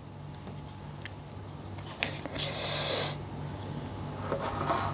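Quiet eating sounds: a few light clicks of a wooden spoon against the bowl, then a short hissing intake of breath about two and a half seconds in, over a low steady hum.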